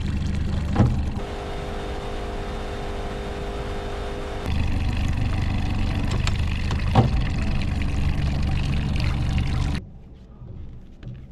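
Boat motor running steadily, with a sharp knock about a second in and another about seven seconds in; the motor sound cuts off abruptly near the end.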